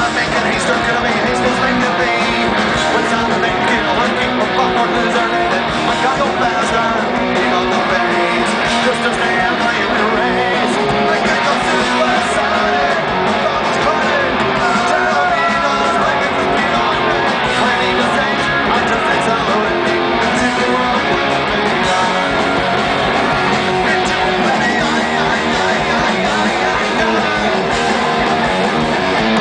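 Punk rock band playing live: electric guitars, drums and singing through the stage PA, heard from within the crowd.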